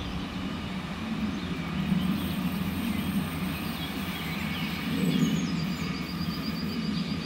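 DB class 648 Alstom Coradia LINT diesel multiple unit running through a curve: a steady low rumble of its underfloor diesel engines and wheels on the rails.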